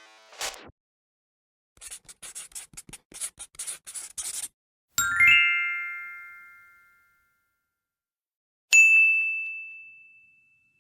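A run of separate editing sound effects: about two and a half seconds of rapid, irregular clicking like typing, then a bright ding that rings out with several tones, then a few seconds later a second, purer single-note ding that fades away.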